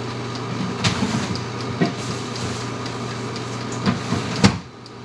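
Kitchen work sounds: a steady appliance hum with a few knocks and clunks, the hum cutting off suddenly right after a final knock near the end.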